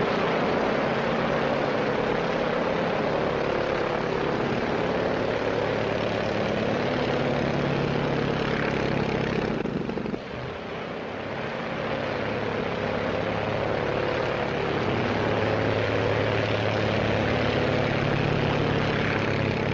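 Single-engine propeller aircraft's piston engine running steadily at high power during take-off and a low pass. About ten seconds in the sound dips briefly, then builds again.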